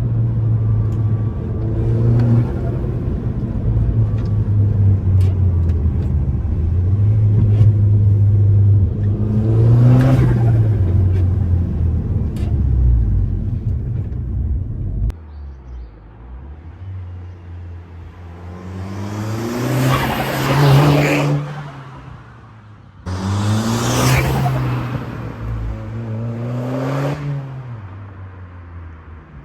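Audi S3 8P's turbocharged four-cylinder engine running, then revved twice in the second half, with the Forge-spaced blow-off valve venting a loud whoosh of air at each rev, the 'whoshshsh' the setup is fitted for.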